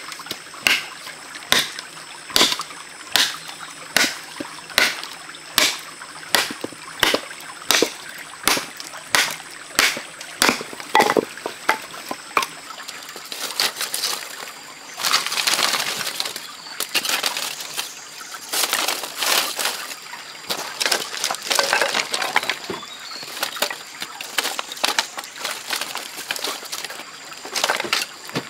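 A wooden stick knocking hard and evenly on an upright bamboo pole, about one strike a second, for roughly the first twelve seconds. After that, dry split bamboo strips rustle and clatter as they are laid by hand as kindling in a stone fire pit.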